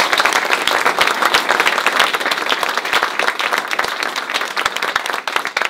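Audience applauding, many people clapping at once, the applause slowly dying down toward the end.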